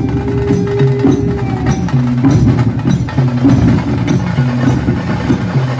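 Background music: a percussive track with a low melody line stepping between notes over a busy rhythm.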